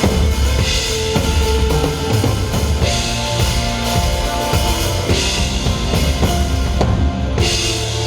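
Live band playing a rock-style song through a PA, with a full drum kit of bass drum, snare and cymbals under sustained pitched instruments. Cymbal crashes swell about every two seconds. The high end drops out briefly about seven seconds in, then the full band comes back.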